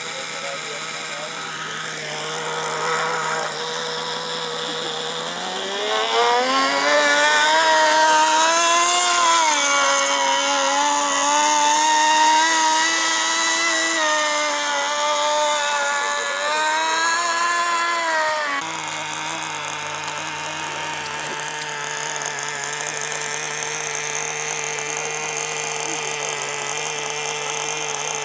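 Small two-stroke model-boat engine running with a buzzing note. About six seconds in it revs up, the pitch rising and wavering with the throttle, and after about eighteen seconds it drops back to a steady lower note.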